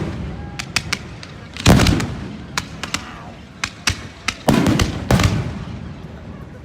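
Fireworks display: aerial shells bursting in a series of sharp bangs with a rolling, echoing rumble between them. The loudest bang comes about two seconds in, and a quick cluster of bangs follows around five seconds in.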